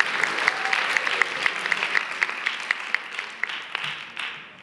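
Audience applauding, with dense steady clapping that thins out and fades away near the end.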